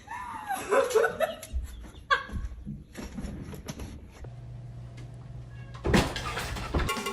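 A domestic animal's cries: one long call that bends up and down in pitch in the first second and a half, then a short one about two seconds in. Music starts loudly about six seconds in.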